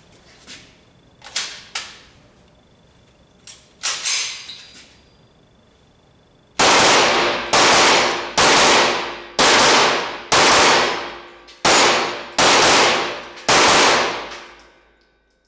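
Chiappa CBR-9 Black Rhino 9 mm Luger semi-automatic carbine fired eight times, about one shot a second, each loud shot ringing out in the range's echo. A few lighter metallic clacks come before the shooting starts.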